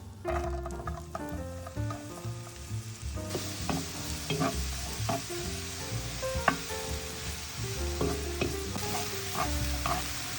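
Food frying in a hot pan: a sizzle that sets in about three seconds in, with scattered sharp crackles or utensil taps, over background music.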